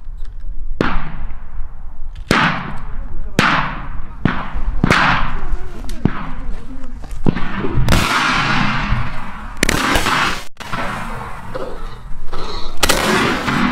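A rapid series of gunshots from hunters' guns firing at a running wild boar, about eight shots in the first eight seconds, each ringing out with a long echoing tail. Denser shots follow as the boar is hit and tumbles.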